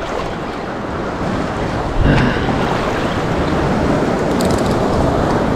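Surf washing around a wader standing in shallow Gulf water, with wind buffeting the microphone; the water noise swells louder about two seconds in.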